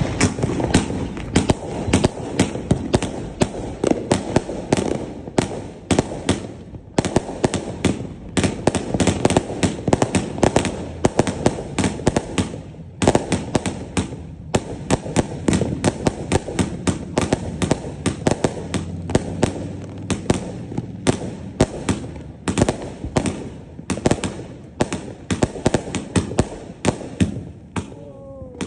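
Many fireworks exploding in rapid succession, a dense run of bangs and crackles, with short lulls about seven and thirteen seconds in.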